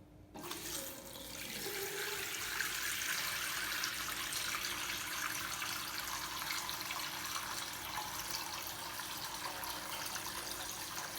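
Water running from a faucet fitted with a silent ceramic cartridge, a steady rushing hiss that starts just after the beginning as the tap is opened. It is plain water sound with no resonant humming: the silencing cartridge has removed the hum caused by water flow striking inside the valve.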